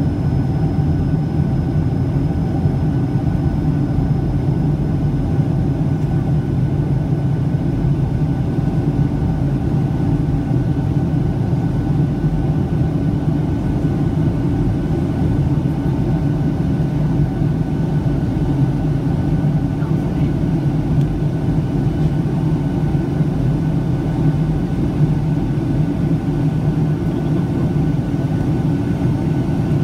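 Steady cabin roar of a Boeing 757-200 airliner in flight: jet engine noise and airflow heard from inside the passenger cabin, a low even rumble with a few faint steady tones over it.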